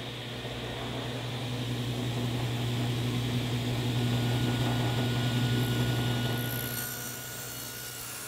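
Table saw running with a steady low hum while a board is pushed through the blade on the miter gauge, making notch cuts with a single blade. The sound swells through the middle as the blade cuts and eases off near the end.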